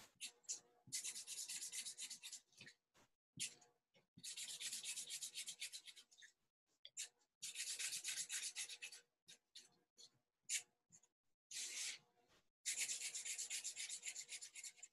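Felt-tip Sharpie marker scribbling back and forth on paper while colouring in: faint scratchy rubbing in four runs of about two seconds each, with short ticks between.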